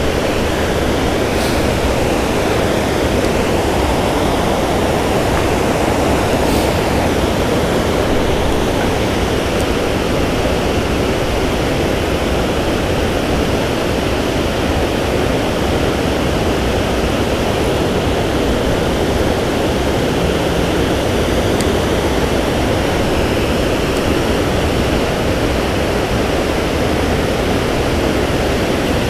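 Water pouring over a low dam spillway into the river below: a steady rushing noise.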